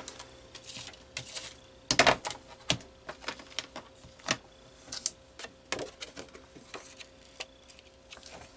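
Scattered clicks and knocks from a clear plastic stamping platform as its hinged lid is opened and closed and the card is set in place beneath it. The loudest knock comes about two seconds in.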